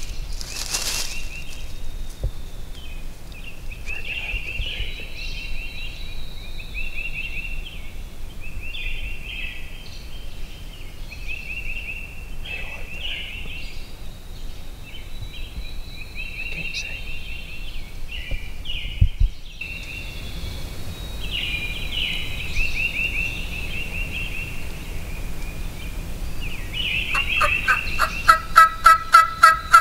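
Wild turkey gobbler gobbling again and again. Near the end comes a quick run of about eight loud, evenly spaced yelps.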